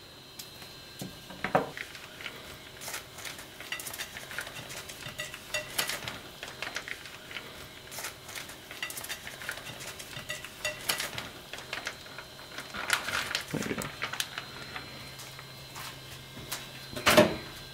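Plastic vacuum-seal bag crinkling and rustling as it is opened and peeled off a cooked steak on a china plate, with irregular light clicks and taps of handling throughout.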